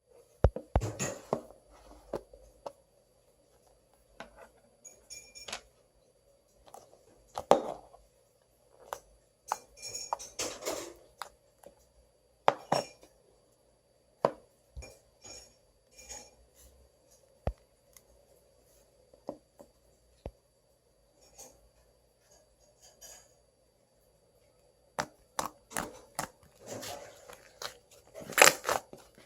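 Slime and clay being handled by hand: scattered sharp clicks, taps and short sticky noises in clusters, with a busier stretch near the end.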